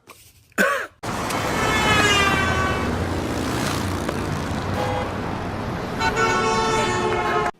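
A vehicle horn sounding twice over steady road noise: the first honk sags slightly in pitch, the second is held for about a second and a half. It cuts off just before the end.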